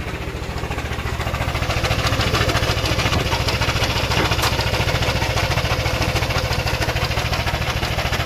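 Yamaha NMAX v1 scooter's single-cylinder engine idling steadily, with the abnormal engine-area noise it has been making. The owner later traces that noise to a part that vibrated and knocked against something, cured by lifting it.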